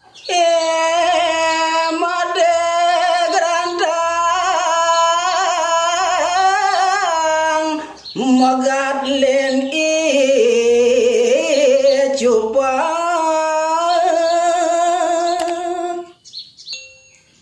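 Unaccompanied Balinese tembang singing in pupuh Ginanti: a man's solo voice holds long, ornamented, wavering notes in two phrases, with a short break about eight seconds in, the second phrase dipping lower before rising again, and stops about a second before the end.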